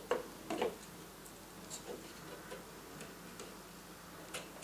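Faint scattered clicks and taps of hands handling a plastic computer fan while fitting small self-adhesive rubber anti-vibration pads, with two louder clicks in the first second.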